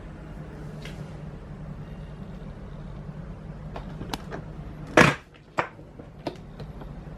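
A few sharp clicks and knocks, like parts being handled and set down, the loudest a single knock about five seconds in, over a steady low hum.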